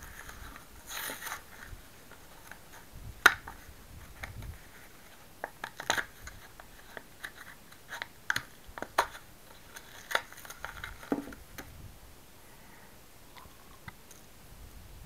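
Stiff plastic blister packaging being pried and torn open by hand and a small servo pulled out of it: scattered sharp clicks and short crinkles, the loudest about three seconds in.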